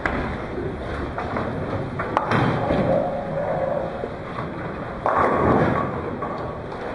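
Bowling ball thudding onto the lane and rolling, then a sharp clack of ball on pin about two seconds in as it knocks down the last pin for a spare. A louder stretch of clatter follows about five seconds in.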